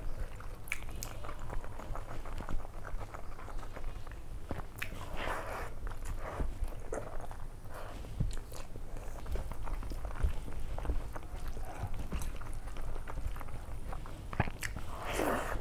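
Close-miked eating sounds: chewing and wet mouth smacks, with scattered clicks and the squelch of fingers mixing rice and dal on a steel plate, over a steady low hum.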